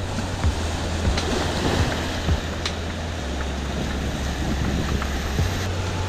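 Fast-flowing Baker River water rushing past, a steady even hiss of moving water.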